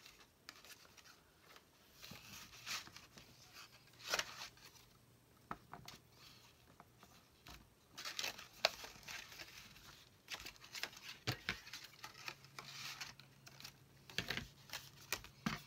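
Hands tying baker's twine around a paper envelope and cardboard ViewMaster reel: faint paper rustling and crinkling with scattered light taps and clicks. A faint low hum comes and goes.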